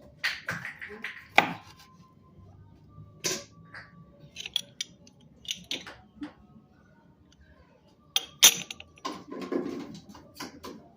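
Kitchen clatter: a string of irregular sharp knocks and clinks of dishes and utensils, some ringing briefly, the loudest about a second and a half in and about eight and a half seconds in.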